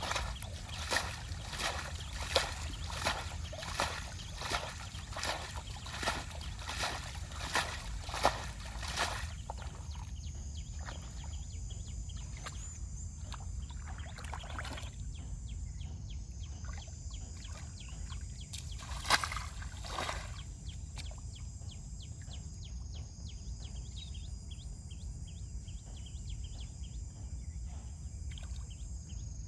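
Water sloshing and splashing in a regular rhythm, about one stroke every 0.7 seconds, for the first nine seconds; then a steadier low water noise with a louder splash about 19 seconds in.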